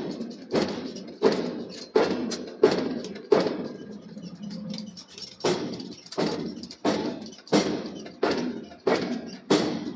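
Forging hammer striking hot steel, about one heavy blow every 0.7 seconds, each with a short ringing decay. The blows pause for about two seconds midway, then resume at the same pace.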